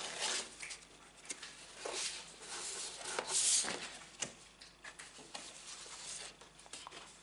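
Sheets of craft cardstock and satin paper being shuffled and slid against each other in a cardboard box: irregular rustles and swishes with a few light taps. The loudest swish comes about three and a half seconds in.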